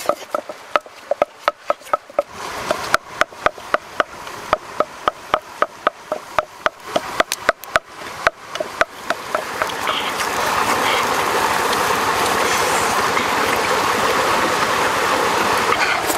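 Wooden pestle pounding in a wooden mortar: a steady run of sharp knocks, about three or four a second. About ten seconds in the knocking gives way to a louder, steady rushing noise.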